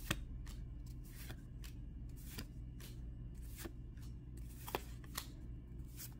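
Yu-Gi-Oh trading cards being flipped through one by one in the hand, each card slid off the stack with a short papery flick. The flicks come irregularly, two or three a second, over a steady low hum.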